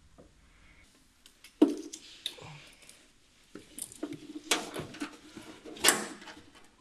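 Hands working among engine-bay parts: irregular clicks, knocks and rattles of plastic and metal as parts near the sensor hoses are worked loose, with sharper knocks about a second and a half in and near the end.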